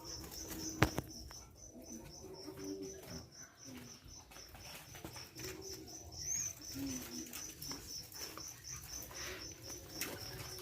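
Doves cooing, a series of low repeated coos, over a steady, evenly pulsing high-pitched chirping. A single sharp click about a second in.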